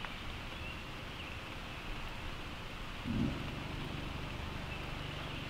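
Steady hiss of rain falling outdoors, with a brief low rumble about three seconds in.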